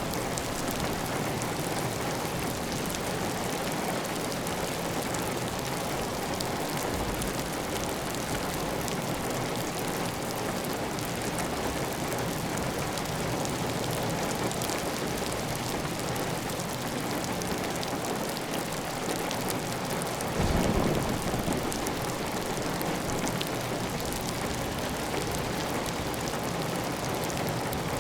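Heavy, steady rain on a tiled roof with water running off the roof edge: a dense, even hiss of drops. About twenty seconds in, a brief louder low rumble swells for about a second.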